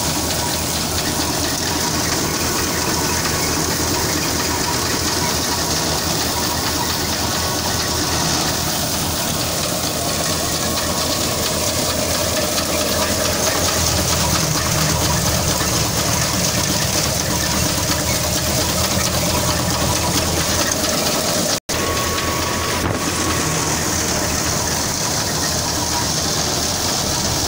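Tractor-powered wheat thresher running steadily at full work: the engine's low drone under the loud, even rush of the threshing drum and fan. The sound breaks off for an instant about three quarters of the way through, then carries on unchanged.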